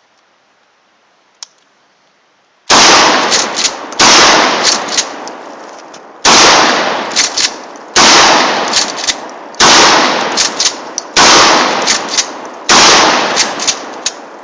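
Seven gunshots from a firearm, starting about three seconds in and spaced one to two seconds apart, each with a long echoing tail.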